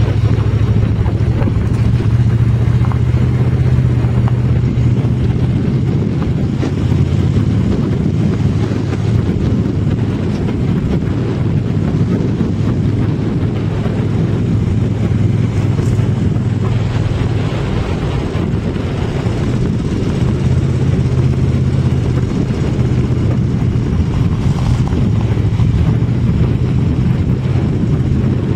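A vehicle driving on a gravel road: a steady engine drone under a rumble of tyres on gravel and wind on the microphone. The engine note eases off through the middle and comes back stronger near the end.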